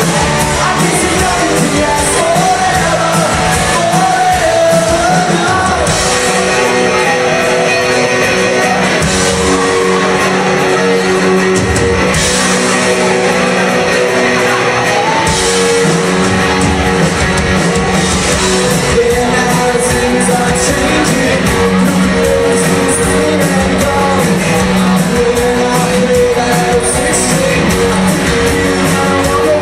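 Live rock band playing, a singer over guitar, with the echo of a large hall.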